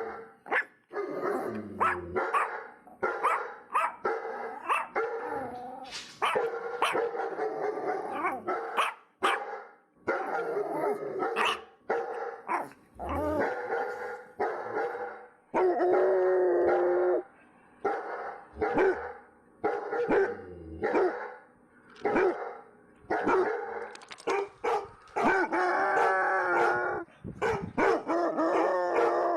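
Dog barking repeatedly in quick, irregular bursts, with a few longer drawn-out calls about halfway through and near the end.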